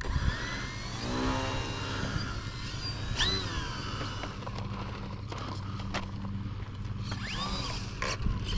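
Electric motor and propeller of a HobbyZone Apprentice S2 trainer RC plane running on the ground, with a steady low hum and a rising whine as the throttle comes up about a second in.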